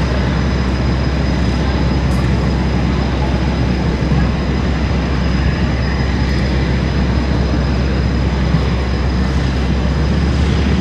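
Steady, loud outdoor background noise with a heavy low rumble, unchanging throughout, with no speech.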